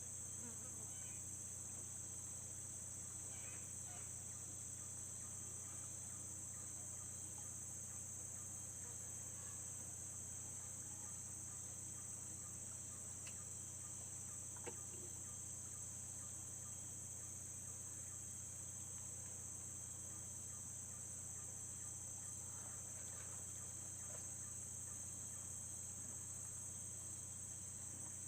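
Steady chorus of insects, a continuous high-pitched buzz, over a steady low hum, with a couple of faint clicks about halfway through.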